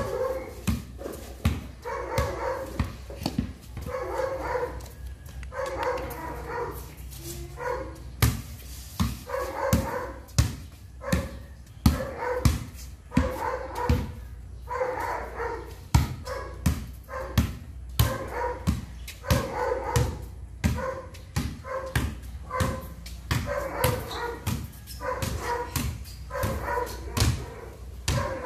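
A basketball dribbled hard on concrete, a quick run of sharp bounces during cone drills, with a dog whining and barking over it again and again.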